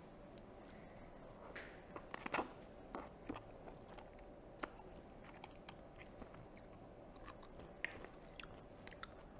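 A woman slurping and chewing river snail rice noodles (luosifen), with one loud slurp a little over two seconds in followed by scattered small wet mouth clicks and chewing.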